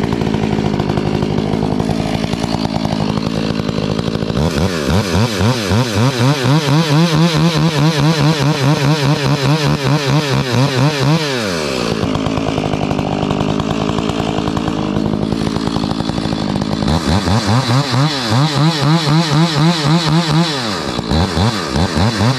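Stihl MS 461 two-stroke chainsaw cutting through a fallen log. It runs steadily at first, then revs up into the cut about four seconds in, its pitch wavering under load. It drops back to a lower, steady run around twelve seconds, then revs up into the cut again for the last five seconds, easing off briefly near the end.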